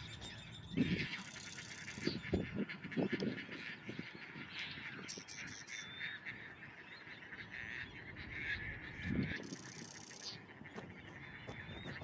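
Marsh ambience with waterfowl giving a few short, low calls, about a second in, around two and three seconds, and again near nine seconds. A small bird chirps briefly twice over a faint background hiss.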